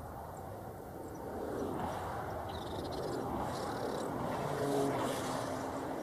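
Steady noise of distant vehicle traffic, growing louder about a second and a half in.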